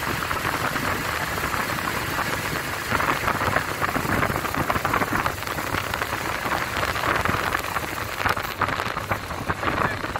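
Steady noise of a vehicle driving at speed: engine, tyres and rushing air, with a constant crackle of wind buffeting the phone's microphone.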